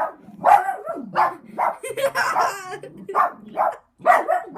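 A dog barking in a quick run of about eight sharp barks, roughly two a second.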